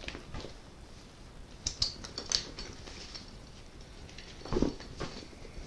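A Seattle Sports Explorer 40-liter dry bag being opened and handled: a few sharp crinkling clicks about two seconds in, then a louder rustle and thump about four and a half seconds in.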